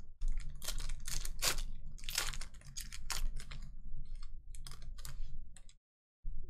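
Foil wrapper of a Panini Contenders football card pack being torn open and the cards handled: a dense run of irregular crinkles and crackles that stops suddenly near the end.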